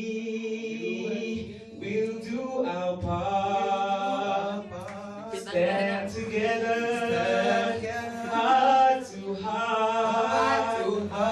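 Two men singing into microphones, their voices amplified through a PA, over steady held tones.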